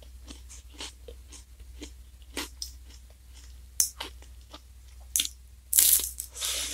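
Crunching and chewing of the black wafer cone of a Glico Wings J-Cone ice cream, heard close up: a few sharp, separate crisp crunches about a second apart, then a louder, longer crunch as a fresh bite is taken near the end.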